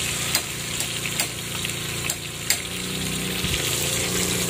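Food frying in hot oil: a steady sizzling hiss, with a low hum underneath and a few light clicks.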